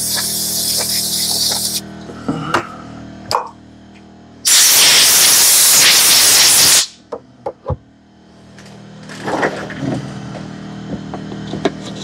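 Two hissing sprays: a short, thinner one at the start and a louder, fuller one of about two and a half seconds in the middle. Underneath, a small air compressor hums steadily, with a few light clicks of small parts being handled.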